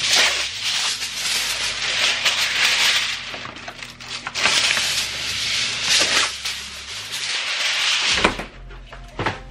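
Aluminum foil being pulled off the roll, crinkled and smoothed flat by hand: a loud crackling rustle in two long stretches, then a few sharp clicks near the end.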